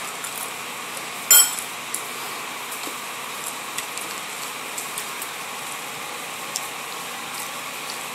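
Small clicks and ticks of eating and handling food at a table over a steady background hiss. About a second in there is one sharp clink or knock, much louder than the rest.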